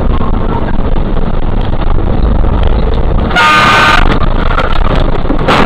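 A vehicle horn blasts once for about half a second, about three and a half seconds in, over a steady rumble of traffic and engine noise. A short burst of noise follows near the end.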